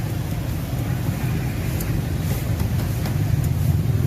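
Steady low rumble of passing road traffic, with a few faint ticks over it.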